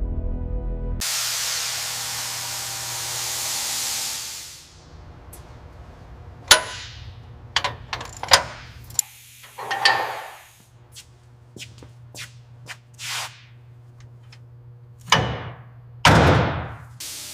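A loud spraying hiss for about three seconds that fades out, then a run of sharp clicks and knocks of hand tools on metal engine parts, with a few short hisses, over a low steady hum.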